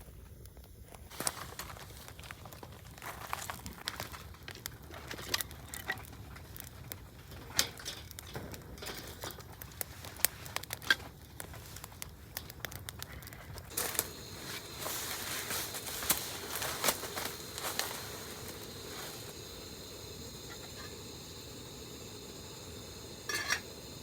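Crinkling, rustling and small clicks of things being handled, then from about fourteen seconds in a steady hiss with scattered crackles underneath.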